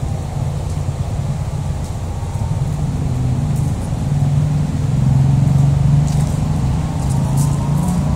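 A motor running steadily with a low hum, growing louder past the middle and rising slightly in pitch near the end.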